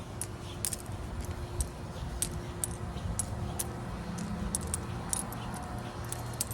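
Small metal tags on a dog's collar jingling and clicking irregularly, a few light ticks a second as the dog moves, over a steady low hum.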